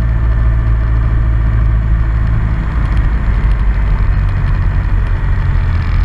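Cessna 172's piston engine and propeller running at idle, a steady low drone heard from inside the cockpit.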